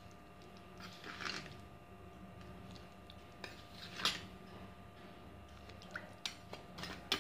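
Faint clinks and scrapes of a metal spoon against a stainless steel bowl and a sugar container as spoonfuls of powdered sugar are added. The loudest scrape comes about four seconds in, with a few quick clicks near the end.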